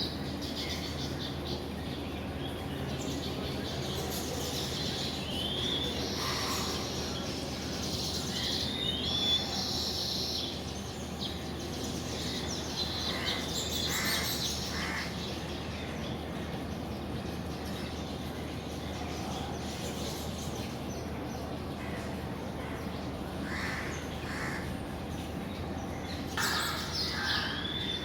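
Weaver birds chirping around their nests, a scatter of short high chirps and whistled notes, with a few harsher, crow-like calls among them. A low steady hum runs underneath.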